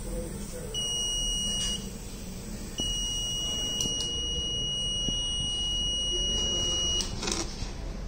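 Electronic buzzer of an Arduino-controlled fog hand-disinfection machine sounding a high steady tone: a beep of about a second, then a long tone of about four seconds that cuts off near the end.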